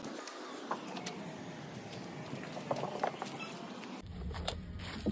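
Faint outdoor background noise with a few scattered light clicks and taps.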